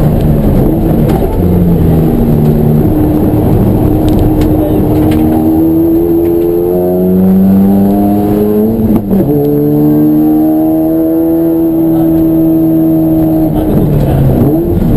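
Race car engine running hard under load, its pitch climbing, then dropping sharply at a gear change about nine seconds in, sinking slowly, and climbing again near the end.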